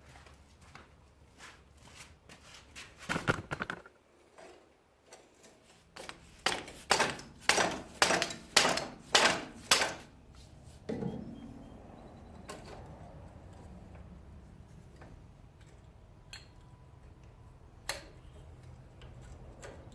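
Hand tools clinking and knocking on metal parts, with a run of about seven evenly spaced metal strikes, about two a second, midway through.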